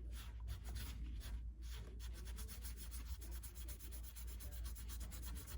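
Faint back-and-forth rubbing on the hammer head, wiping excess paint out of the stamped lettering: a few slower strokes, then from about two seconds in a quick, even scrubbing of about ten strokes a second.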